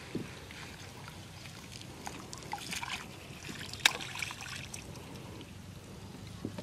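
Water trickling and dripping, with small splashes, as a wet hook-chain fishing line is hauled hand over hand out of a beel into a wooden boat. A single sharp knock about four seconds in.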